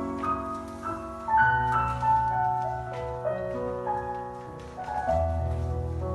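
Piano music in a classical style: a melody of sustained notes moving over held low bass notes.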